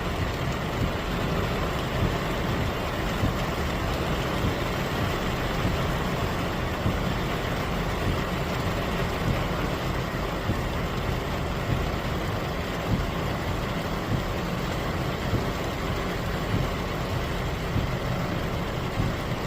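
Heavy typhoon rain pouring steadily: a dense, even hiss with a strong low rumble underneath and small regular surges in loudness.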